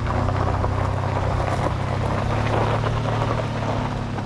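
Car driving: a steady low engine drone with road noise.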